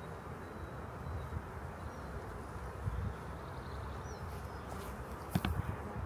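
Honeybees buzzing steadily around an open hive, with a single short knock about five seconds in.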